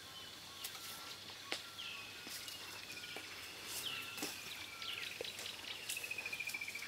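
Birds calling: a series of falling whistled phrases that speeds into a fast trill near the end, with short repeated lower notes. A few sharp clicks sound in between, the loudest about a second and a half in.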